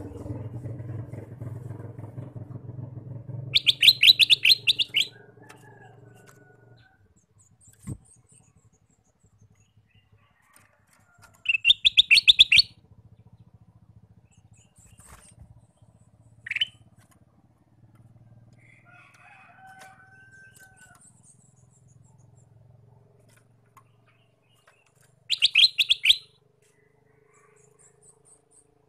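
Male ruby-throated bulbul (kutilang emas) singing: three loud, rapid runs of repeated high notes, each about a second long and several seconds apart, with a few softer single calls between. A low engine hum fades out in the first six seconds or so.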